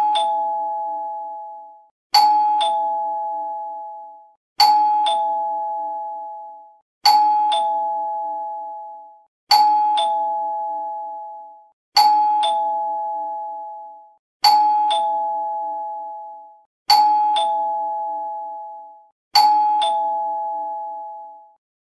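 Doorbell chime ringing a two-note ding-dong, a higher note followed by a lower one, repeated over and over about every two and a half seconds. Each ding-dong rings out and fades before the next.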